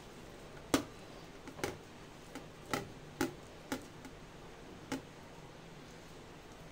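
Hand mixing spiced gram-flour paste on a steel plate, heard as about seven sharp, uneven taps and clicks against the metal in the first five seconds.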